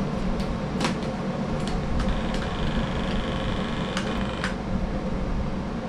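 Steady low machine hum of a room fan or air conditioner, with a handful of short sharp clicks and knocks as an airsoft M249 light machine gun is lifted and shouldered.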